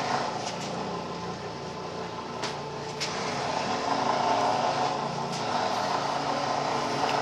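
Electric masticating juicer fitted with a grinding attachment, its motor running steadily as carrots are forced down the feed chute with a plunger and ground to mash. Two sharp clicks come about two and a half and three seconds in.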